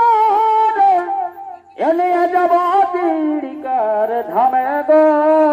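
Music for a Chhau dance: a nasal reed pipe of the shehnai type plays a bending, ornamented melody, breaking off briefly about a second and a half in before carrying on.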